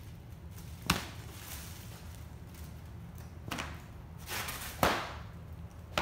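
A kitten scrambling inside a fabric cat tunnel: a few sharp knocks and a short rustle, the loudest knock near the end.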